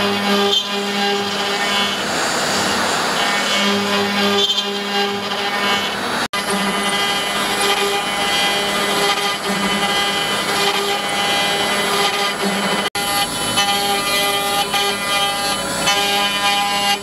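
5-axis CNC router spindle running with a steady whine while its cutter mills a curved workpiece, with a rough cutting noise underneath. The sound cuts off abruptly twice for a moment.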